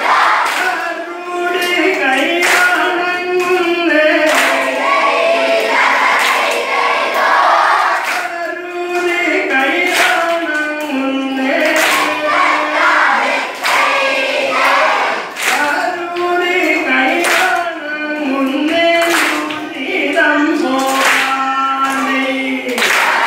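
A large group of children and adults singing a vanjippattu (Kerala boat song) together, clapping their hands in time with it.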